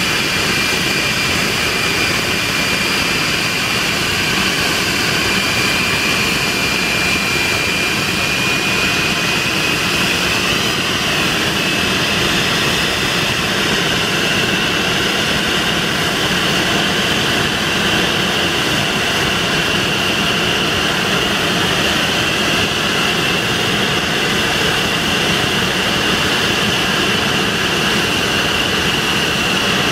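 De Havilland Venom's Ghost turbojet running at high power on the ground: a steady jet rush with a high whine that climbs slightly in pitch about ten seconds in as the engine winds up, then holds.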